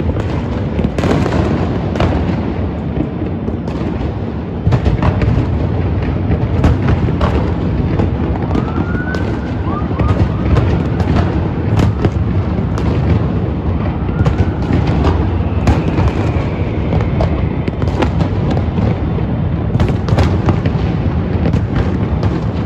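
Dense New Year fireworks going off without a break: a constant low rumble of many bursts, with frequent sharp bangs and crackles. A few short rising whistles come near the middle.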